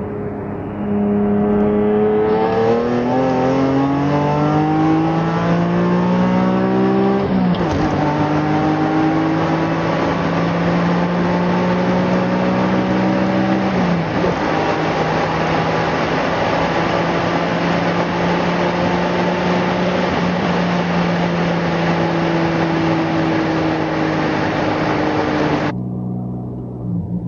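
BMW E46 M3's S54 straight-six with a Gruppe M titanium exhaust, accelerating hard through a manual gearbox. The revs climb quickly, fall sharply at an upshift about seven seconds in, and climb again more slowly. A second upshift comes about halfway through, followed by a long, steady pull in a higher gear until the sound drops suddenly near the end.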